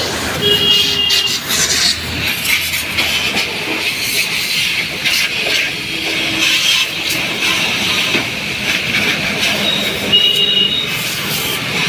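High-pressure washer jet spraying water onto a scooter's plastic leg shield and floorboard, a steady loud hiss.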